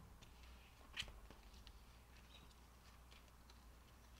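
Near silence: room tone, with one faint click about a second in and a few soft ticks and rustles from a binder and papers being handled.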